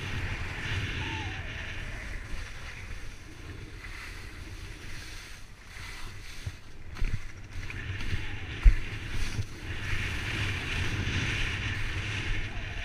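Skis hissing and scraping over packed snow, with wind buffeting a point-of-view action camera's microphone; the rush swells and eases with the turns. A few sharp knocks break in past the middle, the loudest about nine seconds in.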